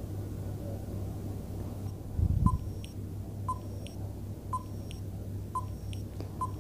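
Quiz countdown-timer sound effect: five short beeps about a second apart, starting a little over two seconds in. A brief low thud comes just before the first beep, over a faint steady low hum.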